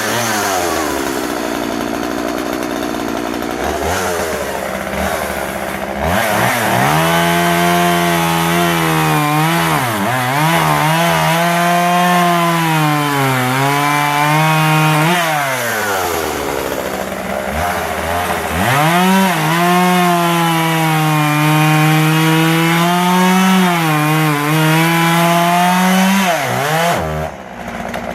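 Husqvarna 141 40cc two-stroke chainsaw running, then cutting wood twice at full throttle, about 6 s in and again about 18 s in. In each cut the engine note sags and recovers under load, and it drops back briefly near the end. The owner feels it runs slightly lean at the top end in the cut and that the chain needs a light sharpen.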